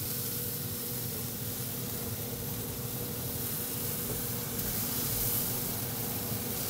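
Yoder YS640s pellet grill running with its lid open: a steady hiss over a low, even hum, the hiss growing slightly brighter a little past halfway.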